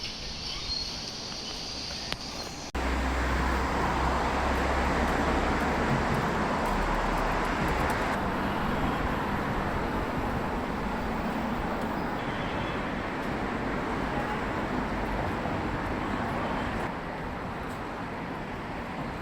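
Insects trilling for the first couple of seconds, then an abrupt switch to the steady roar of street traffic: cars and other vehicles passing with a low rumble.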